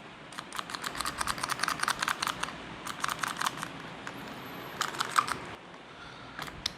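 Rapid light clicking in three bursts of several clicks a second, with one sharper click about five seconds in.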